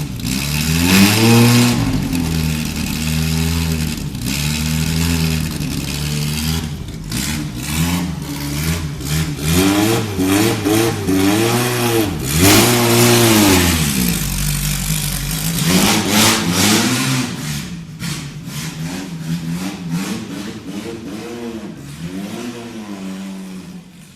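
Alpine M63 race car's small inline-four engine being revved in short repeated throttle blips, each rising and falling back, with idle in between. Near the end the blips become lighter and the engine settles toward idle.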